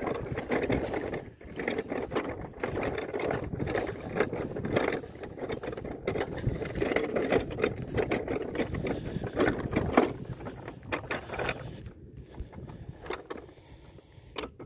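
Deer cart pushed over rough ploughed ground: a steady rattling and clattering of its wheels and frame, mixed with footsteps. The rattling dies away about two seconds before the end.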